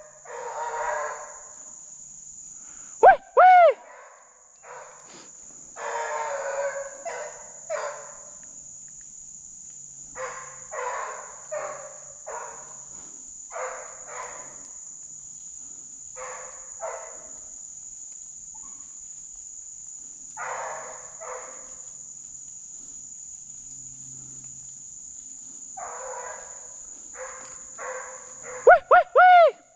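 Deer hounds baying in irregular bouts as they run a track, over a steady high drone of insects. Loud, short, sharp calls with quickly sliding pitch ring out close by about three seconds in and again near the end.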